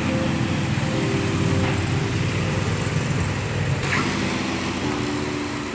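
Road traffic noise from passing vehicles, with steady low humming tones that step to new pitches every second or so.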